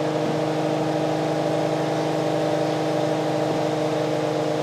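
An induction motor spinning the six-pole rotor of an experimental eight-coil generator, running at a steady speed with an even whirring hum made of several steady tones.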